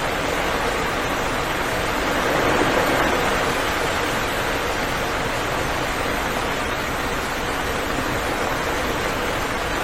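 Steady rain falling, an even hiss of noise that swells slightly a little over two seconds in.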